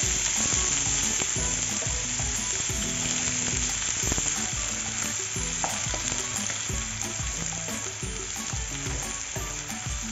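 Freshly added finely chopped onion frying in hot oil in a non-stick pan, a steady sizzle, while a plastic slotted spatula stirs it around the pan.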